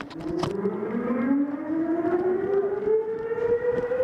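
A siren winding up, one tone whose pitch climbs slowly and steadily. A sharp click comes about half a second in.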